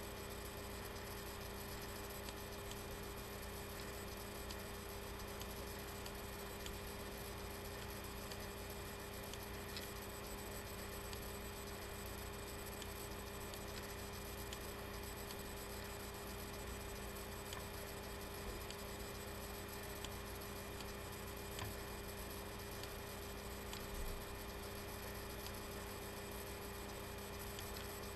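Steady electrical hum over a low hiss, with a few faint clicks.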